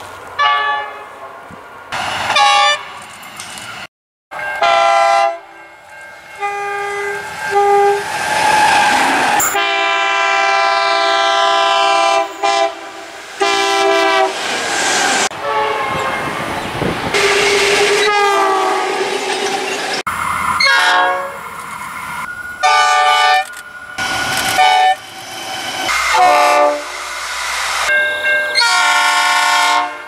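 Locomotive horns sounding a string of loud chord blasts, some short toots and some held for a few seconds, from several trains one after another with sudden cuts between them. Train running noise fills the gaps.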